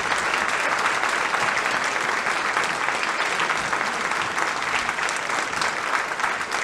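Concert audience applauding, many people clapping together in a steady patter that eases slightly near the end.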